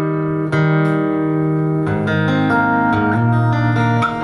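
Acoustic guitar played solo with no singing. A chord is struck about half a second in and left ringing, then about two seconds in the harmony changes to picked single notes over a lower bass.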